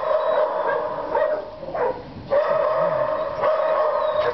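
Many dogs barking and yelping together in a dense, continuous din. It drops away for about a second from just after one second in, then starts up again.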